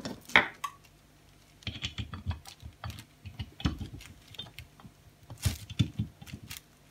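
Irregular metallic clicks and knocks as the parts of a self-centering three-jaw lathe chuck are fitted and worked by hand, coming in small clusters, with the sharpest knock near the start.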